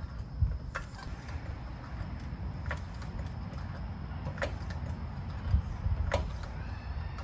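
Floor jack being pumped by its long handle, lifting the rear of a Chevy Suburban: a sharp click at each stroke, four in all, roughly evenly spaced, over a steady low rumble.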